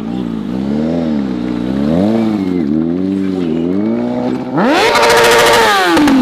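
Stunt motorcycle engine rising and falling in pitch as the throttle is worked through a wheelie. About four and a half seconds in it is revved sharply and held high with a rapid stutter for over a second, then drops off.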